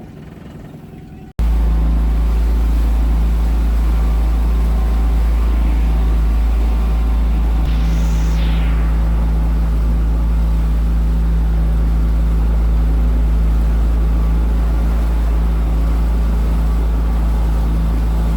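Motorboat engine running at a steady speed, loud and close, cutting in abruptly about a second and a half in. A brief falling hiss passes about eight seconds in.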